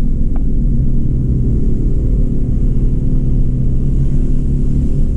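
Car engine running steadily with low road rumble, heard from inside the cabin while driving.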